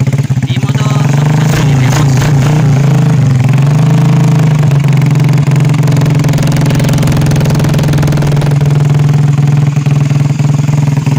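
Suzuki Shogun 125's single-cylinder four-stroke engine idling through an aftermarket RPL racing exhaust. Between about one and three seconds in, the note dips and rises a few times, then it holds a steady idle.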